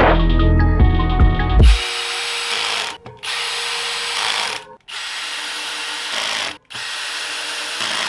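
Background music cuts off about two seconds in, then a power tool runs in four bursts of a second or more each, with short breaks between them.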